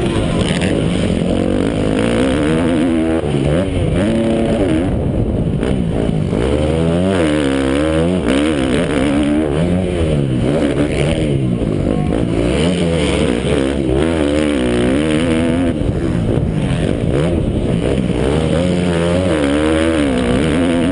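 Motocross bike engine revving hard, its pitch climbing and dropping back over and over every second or two as the rider accelerates, shifts and rolls off through the track.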